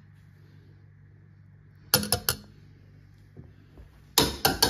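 Metal potato masher knocking against a stainless-steel saucepan: a quick run of three or four sharp clinks about two seconds in and another run near the end, over a low steady hum.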